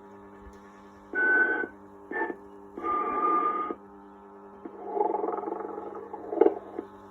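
Vintage animated sleeping Santa toy snoring: a steady mechanical hum, with snores about a second in and about three seconds in that each end in a high whistle, and a longer snore without the whistle about five seconds in.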